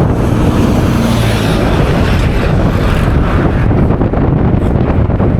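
Loud, steady wind buffeting the microphone over a low rumble.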